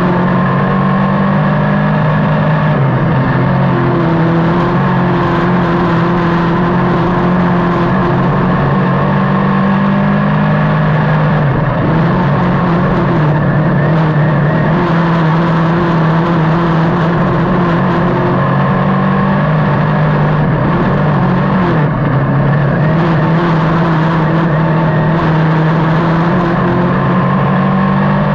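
Dirt modified race car's V8 engine running hard, heard from inside the cockpit. The engine note drops and climbs again about every ten seconds as the car laps the dirt oval.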